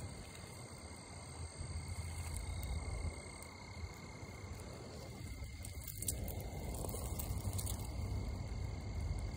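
Outdoor ambience with a steady, unbroken high insect trill and a low rumble on the microphone; a soft rustle joins in about six seconds in.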